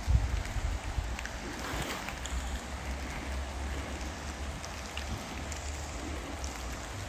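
Outdoor woodland ambience: a steady even hiss over a low, uneven rumble on the microphone, strongest in the first moment, with a few faint scattered ticks.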